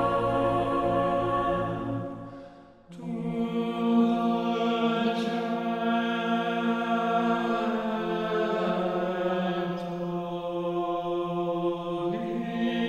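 A choir singing slow, sustained chords to the words 'to the gentle beginning'. About two and a half seconds in the chord fades to a brief gap and a new one swells in, and the harmony shifts near the end.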